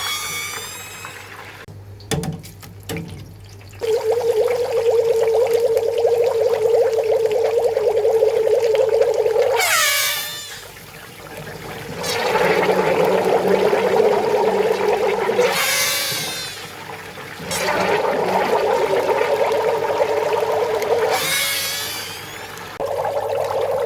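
Sausages frying in hot oil, steam forcing out through the casings in a buzzing whine that comes and goes in spells of a few seconds. Short high squeals slide down in pitch between the spells, over a steady sizzle.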